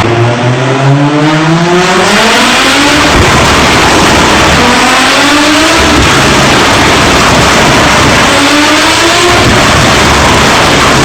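Turbocharged BMW M3 engine and sport exhaust running loud under hard acceleration. Its pitch climbs in about three long sweeps, and each sweep breaks off and starts again lower.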